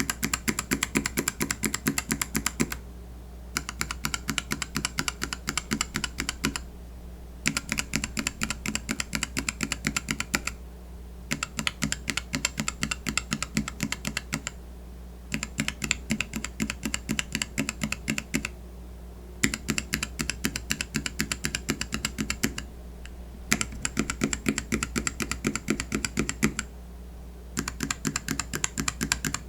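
Kailh mechanical keyboard switches in a switch tester, tapped rapidly and firmly in runs of clicks about three seconds long with short pauses between them.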